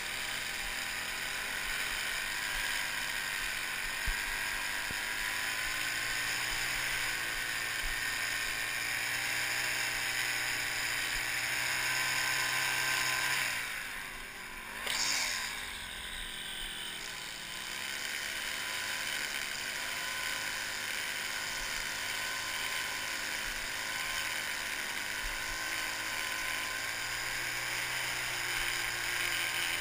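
String trimmer running steadily with a constant whir as its line edges grass along a concrete sidewalk. About halfway through it briefly winds down and speeds back up.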